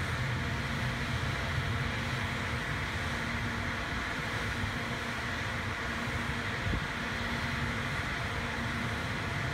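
Seoul Metro Line 1 electric train standing at the platform, its rooftop air-conditioning and auxiliary equipment running with a steady hum and hiss. A single low thump comes about two-thirds of the way through.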